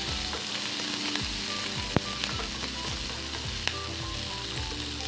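Sliced onions and coriander sizzling in hot oil in a nonstick frying pan, stirred with a wooden spatula that clicks against the pan now and then, sharpest about two seconds in.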